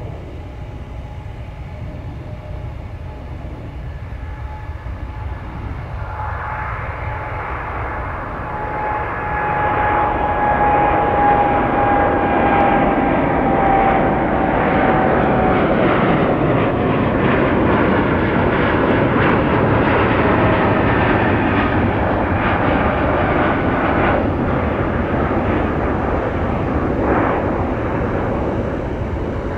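An airplane's engines passing close. Their steady rumble swells to full strength about a third of the way in and holds, while a whine slowly falls in pitch as the plane goes by.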